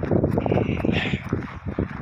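Wind buffeting a phone's microphone, mixed with footsteps crunching through snow.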